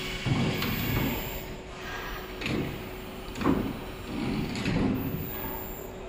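Rich­peace large automatic sewing machine's clamp frame shifting along its table rails: several irregular rumbles and clunks over a steady machine hum.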